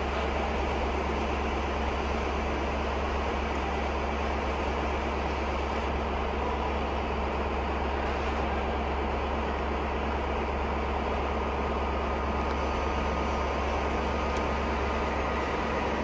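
Steady low hum and hiss of a passenger train standing idle at a platform, its engine or on-board equipment running without change.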